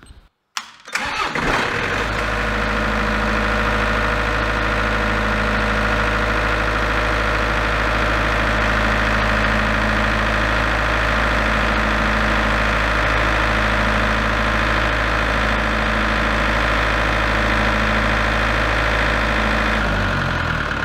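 Broadcrown diesel generator's engine starting on the start button about a second in, then running at a steady speed. Near the end its pitch sinks as it runs down: the controller is shutting it off on an alarm, the fault that keeps stopping this generator.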